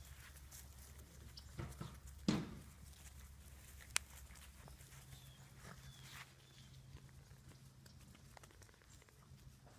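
Six-week-old Labrador puppies playing and tussling on grass, mostly faint rustling and scuffling, with one short louder puppy sound about two seconds in and a sharp click near four seconds.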